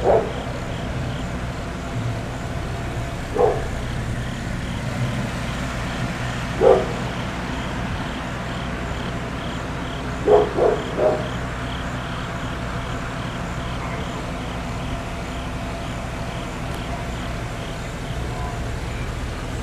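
A dog barking now and then: single barks a few seconds apart, then three in quick succession, over the steady low rumble of idling vehicle engines.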